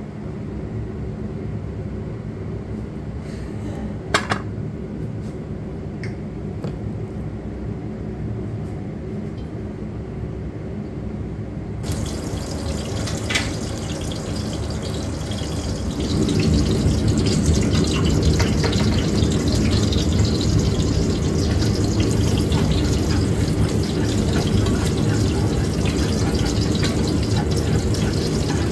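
Water running steadily from a tap into a sink or basin, with two sharp knocks about four seconds in. The flow gets louder about sixteen seconds in.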